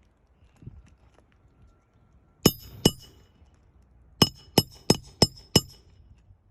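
Hammer blows on metal with a bright ring. Two strikes come first, then five quick strikes at about three a second.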